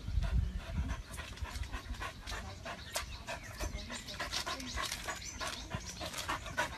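Dog panting hard in quick, uneven breaths while it leaps up at a tree trunk, with a few low thuds in the first second.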